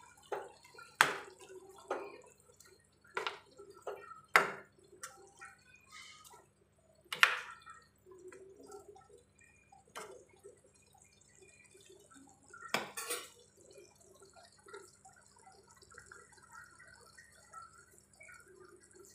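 A spoon stirring thick pea gravy in a metal pot, knocking sharply against the pot several times, loudest about a second, four seconds and seven seconds in, with another knock near two-thirds through. Between the knocks the simmering gravy bubbles with soft plops.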